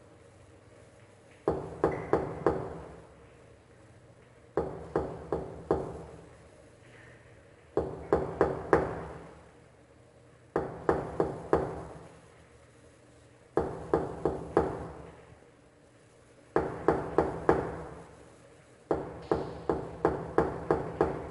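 Knocking on a door: seven bursts of four or five quick raps, one burst about every three seconds, each rap ringing briefly.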